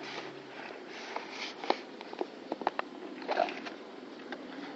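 A cardboard box and its packaging being handled: a series of light clicks and taps, with a few short rustles from the foil and plastic wrapped pieces.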